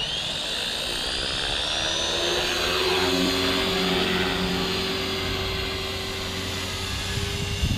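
Walkera V450D03 electric RC helicopter spooling up: a motor whine that rises quickly and levels off about a second in, then holds steady with the rotor's hum. There is a brief knock near the end.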